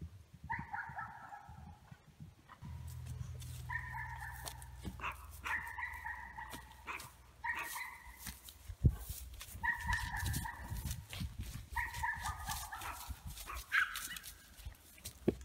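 An animal calling over and over: about eight drawn-out, pitched calls of about a second each. Between them come the footfalls of horses walking through dry grass, and there is one sharp knock about nine seconds in.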